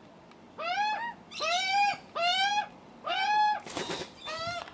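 Juvenile Australian magpies giving screaming begging calls for food, each rising then levelling off, repeated about once a second, with a short flurry of flapping wings near the end.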